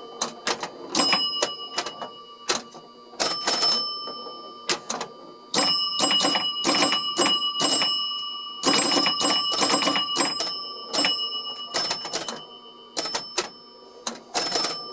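A 1971 Bally 4 Million BC electromechanical pinball machine in play: irregular bursts of rapid sharp clicking from its bumpers, slingshots, relays and score reels, with bells ringing on as points score.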